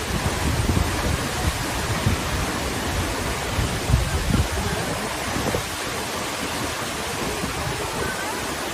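Steady rushing of a tall waterfall, a constant roar of falling water.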